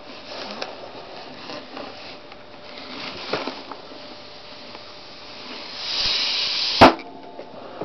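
A red looped latex balloon squeaking and rubbing under a foot's weight, a hiss building for about a second, then the balloon bursting with a single loud pop about seven seconds in.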